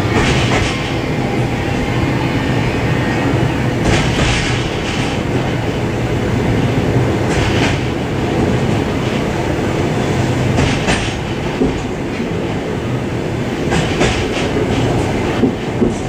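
Suburban train running on the track, heard from inside its vestibule: a steady rumble and hum, with the clack of the wheels over rail joints every few seconds.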